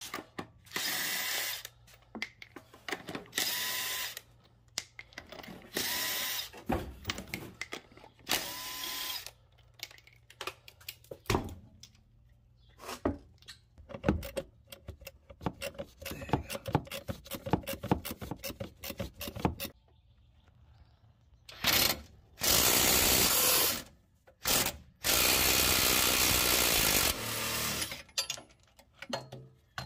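Cordless impact wrench run in four short bursts of about a second each, loosening the lug nuts and shock bolts, with a motor whine that rises at the end of each burst. A stretch of quick clicks and knocks from hand wrenches on the shock nuts follows, then two longer impact-wrench runs of about two seconds each.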